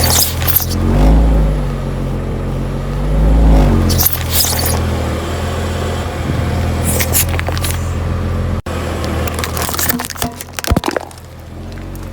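Car engine running, its revs rising and falling once, with several short bursts of crunching and cracking as objects are crushed under the tyres.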